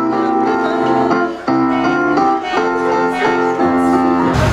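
Community choir singing in unison with keyboard accompaniment, the notes held and moving in steps. Near the end it cuts off abruptly into outdoor noise with a low steady hum.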